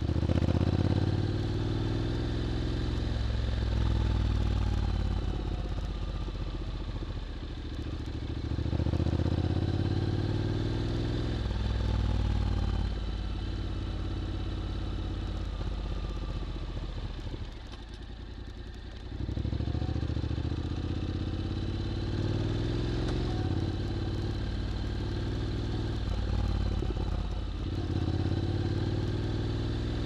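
Honda X-ADV 750's parallel-twin engine through an SC-Project titanium slip-on exhaust, riding at low town speed. It pulls away and rises in pitch several times, and goes quieter for a couple of seconds just past the middle as it eases off.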